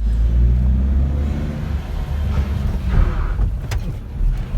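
Toyota Hiace van under way on a brake test drive: a steady low rumble of engine and road.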